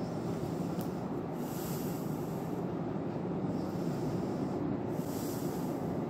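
Steady low rumble of an underground railway station, with two brief swells of hiss, about one and a half and five seconds in.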